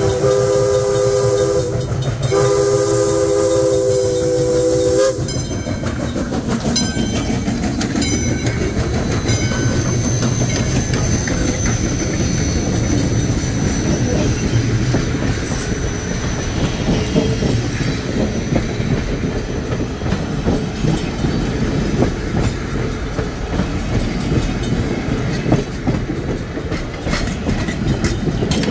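Steam locomotive whistle blowing two long chime blasts with a short gap between them, followed by a doubleheaded steam train and its passenger coaches rolling steadily past.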